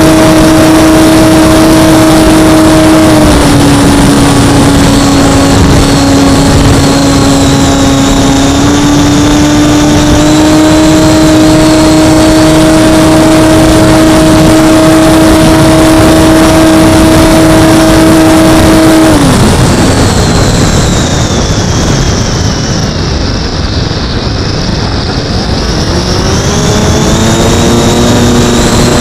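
Skyhunter RC plane's electric pusher motor and propeller, picked up by the onboard camera: a steady, loud hum with wind rushing over the microphone. About two-thirds of the way through, the throttle is cut and the tone drops away, leaving mostly wind as the plane glides. Near the end the motor powers up again with a rising tone.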